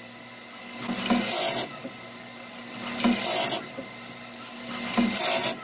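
Bandsaw blade sharpener grinding teeth with a CBN wheel: a short grinding rasp about every two seconds, three in all, as the cam feeds each tooth in turn to the wheel, over a faint steady motor hum. The teeth are being slowly reground, a little at a time, to reprofile them after a nail strike.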